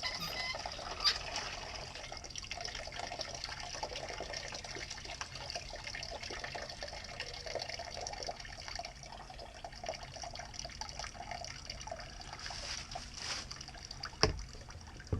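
Water running steadily out of an open outdoor faucet with the house's main supply shut off, draining the remaining pressure from the line. A single knock sounds near the end.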